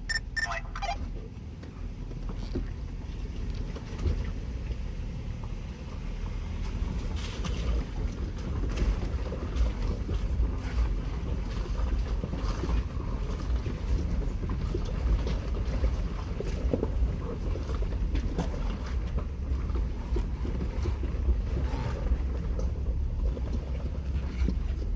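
Wind buffeting the phone's microphone, a steady, uneven low rumble.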